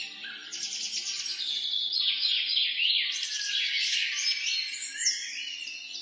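Many small birds chirping together in rapid, overlapping, falling chirps, with faint ambient music under them at the start.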